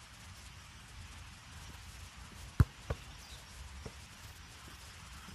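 A football kicked hard about two and a half seconds in, followed a third of a second later by a softer thud as the goalkeeper stops it.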